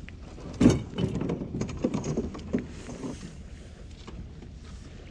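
Knocks and clatter of kayak fishing gear being handled: one loud knock about half a second in, then a run of lighter knocks and rattles, dying down after the middle.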